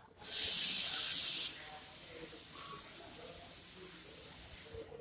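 A steady hiss of static-like noise that starts abruptly, is loud for about a second and a half, then drops to a fainter, higher hiss and cuts off near the end.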